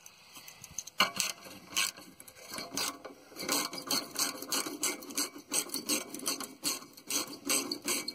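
Hand tool loosening a hose clamp on a car's exhaust: rapid ratcheting clicks with metal rasping. They start sparse and come thick and fast from about halfway through.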